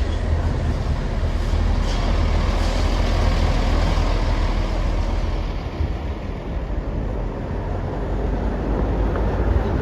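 A heavy road vehicle, a bus, going by with a steady low engine rumble and road noise; no horn melody is heard.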